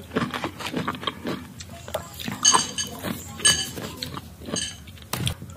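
Metal spoon clinking against a ceramic bowl of dipping sauce: three ringing chinks about a second apart, among short crunching clicks of raw green mango being chewed.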